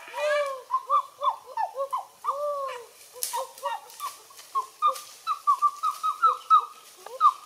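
Several birds calling: a rapid run of short chirping calls, some overlapping, that quicken to a steady series of about three or four a second in the second half.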